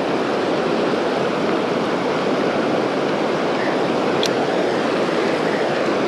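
Creek water rushing steadily over a small waterfall and rocks, a constant, even rushing sound.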